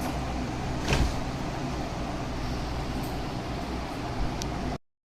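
Steady low background hum with one sharp click about a second in and a fainter tick near the end, then the sound cuts off abruptly to dead silence.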